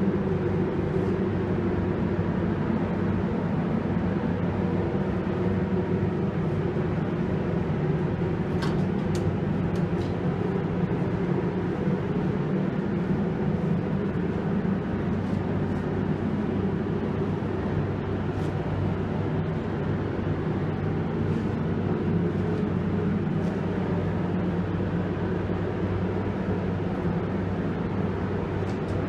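Steady, even machine drone with a low hum, and a few faint clicks about a third of the way in.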